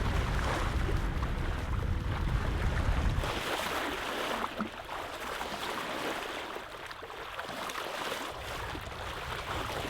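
Water rushing past a sailboat's hull under sail, with wind buffeting the microphone. The low wind rumble drops away about three seconds in, leaving the hiss of the water.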